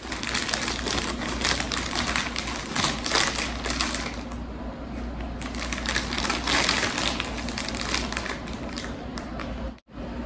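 Crinkly snack-chip bag rustling and crackling as a hand rummages in it, with a quieter stretch about four seconds in before the crackling picks up again, then tailing off.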